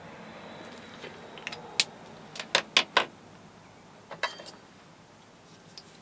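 Plastic art markers being handled on a wooden desk: faint scratching of a marker tip on card at first, then a run of sharp clicks and knocks, loudest about two and a half to three seconds in, as caps are snapped on and markers are set down, with a few more clicks later.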